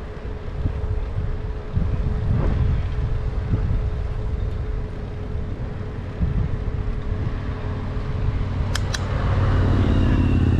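Wind buffeting an action camera's microphone on a moving bicycle, over the rolling of tyres on an asphalt bike path, with a faint steady tone underneath. Two sharp clicks come near the end, followed by a steadier low hum.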